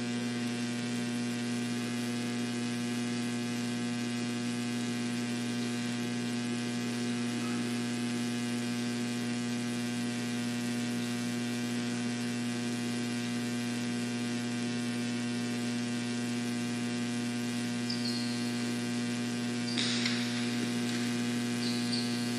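Steady electrical mains hum with many harmonics, unchanging throughout. A short, faint noise comes near the end.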